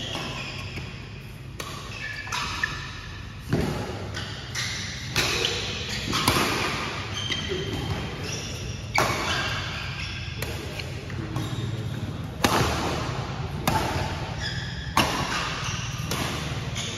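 Badminton rackets striking the shuttlecock in a fast rally, sharp smacks roughly once a second, with shoes squeaking briefly on the court floor between shots. A steady low hum runs underneath.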